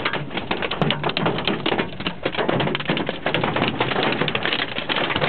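Large hailstones pelting a vehicle, heard from inside the cabin: a dense, continuous clatter of hard taps on the roof and glass.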